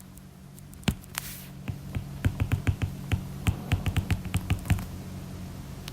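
A quick, irregular run of a couple of dozen sharp clicks or taps over about four seconds, starting with a single louder tap about a second in, above a low steady hum.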